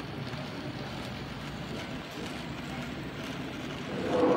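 Bachmann OO gauge Maunsell N Class model steam locomotive and its coaches running along the track, giving a steady rolling rumble from the mechanism and wheels. A short, louder tone sounds near the end.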